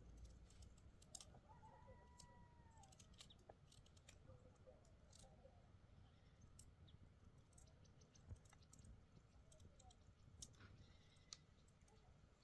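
Near silence with faint, scattered clicks and ticks.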